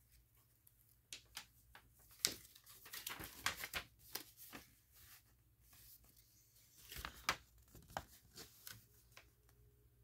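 A folded paper instruction manual being unfolded and opened by hand: scattered faint rustles and crinkles of paper, the loudest about two seconds in and again about seven seconds in.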